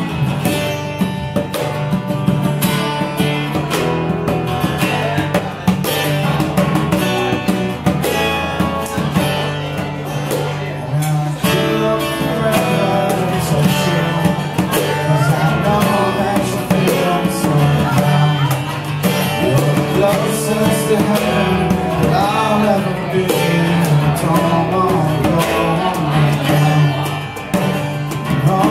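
Acoustic guitar strummed steadily, joined about twelve seconds in by a man singing into a microphone.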